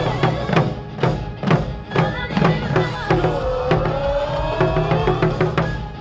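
Yosakoi dance music driven by a steady beat of taiko drum strikes, with a sustained melodic line that glides slowly upward through the middle.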